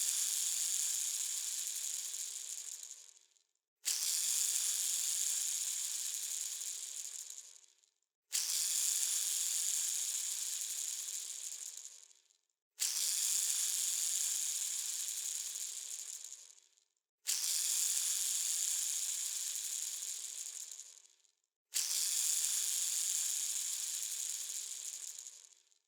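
A bearing spun by hand again and again, about every four and a half seconds. Each spin starts with a high, hissing whir that fades away over about three seconds as the bearing slows to a stop.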